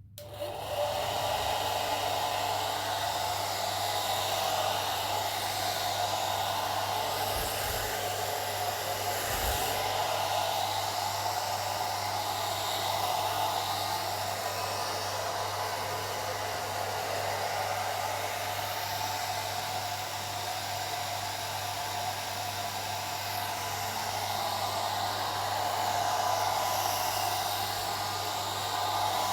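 Old hair dryer blowing steadily: an even rushing of air over a constant low motor hum. It comes up within the first second, then runs without change.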